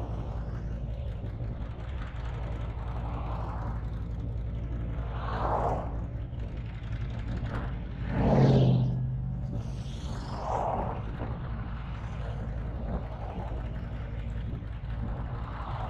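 Motorcycle engine idling steadily while stopped in traffic, with a few swells of noise from vehicles passing by, the loudest about halfway through.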